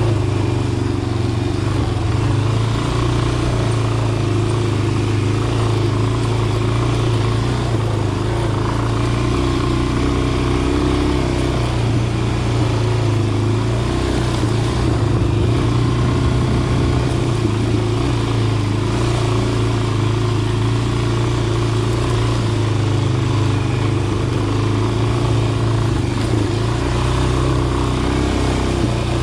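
Dirt bike engine running at a low, fairly steady speed while being ridden, its note holding nearly even throughout.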